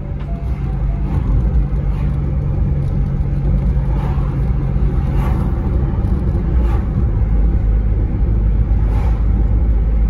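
Car driving along a road, heard from inside the cabin: a steady low rumble of road and engine noise.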